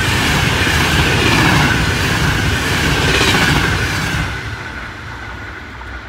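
An Intercity Notte passenger train hauled by an E402B electric locomotive passing, its wheels running loudly over the rails with a gently falling whine. The sound fades from about four seconds in as the end of the train goes by.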